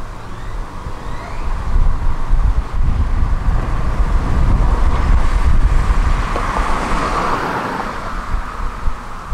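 A car passing close by, its tyre and engine noise swelling over several seconds and easing off again, with wind rumbling on the microphone.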